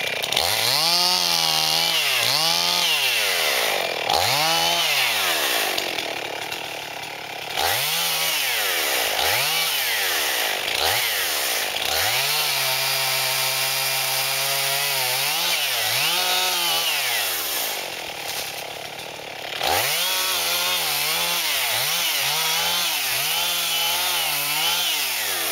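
Small Husqvarna two-stroke chainsaw making a series of short cuts, cutting wood into smaller pieces: the engine revs up and drops back again and again, holds one longer steady cut about halfway through, and falls back to a quieter idle twice.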